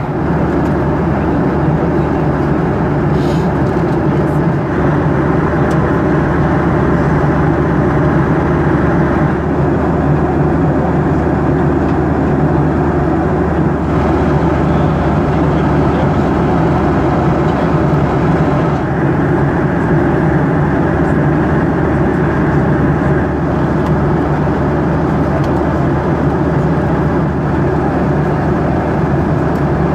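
Steady cabin noise of a Boeing 737-800 in flight: the rush of air over the fuselage mixed with the low hum of its CFM56 engines.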